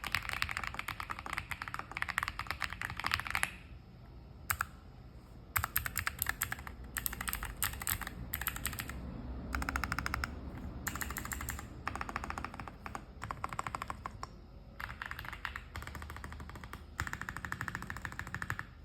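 Typing on a Sugar65 mechanical keyboard with XVX Cherry-profile keycaps and its stock dampening: fast, rapid key clicks at first, then a pause, then runs of keystrokes broken by short pauses.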